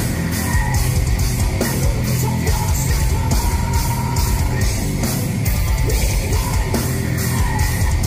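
Heavy metal band playing live: guitars and drums over a steady, driving beat.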